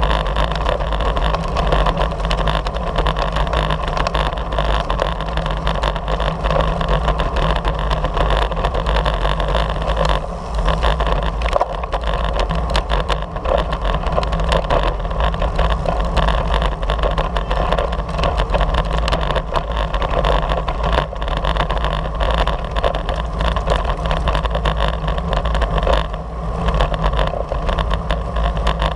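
Steady wind rush and low buffeting rumble on the microphone of a camera mounted on a moving racing bicycle, mixed with tyre noise on the asphalt.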